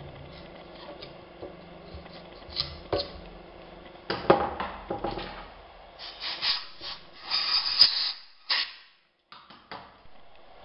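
Irregular knocks, clicks and rubbing of tools and parts being handled, busiest in the middle and cut by a brief silent gap.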